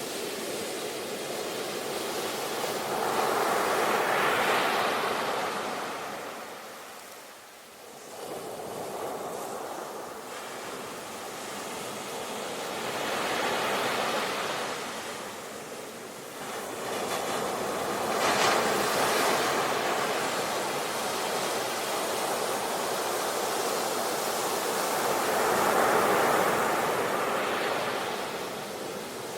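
Sea waves washing onto a shore, rising and falling in about four long surges with a brief lull between the first and second.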